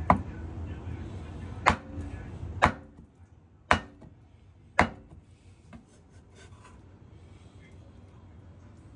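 Chinese cleaver chopping cooked chicken on a wooden cutting board: five sharp chops about a second apart, then only a few faint small knocks after about five seconds.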